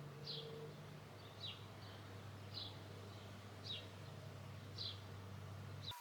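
A bird calling: a short falling chirp repeated about once a second, six times, over a faint steady low hum.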